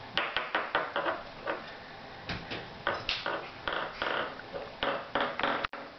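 Shih Tzu puppy's claws clicking and scrabbling on a tile floor in quick runs of sharp taps, with scuffs as a stuffed toy is pushed across the floor.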